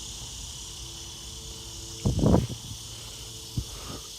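Crickets and other insects chirring in a steady evening chorus, with one brief loud sound about two seconds in.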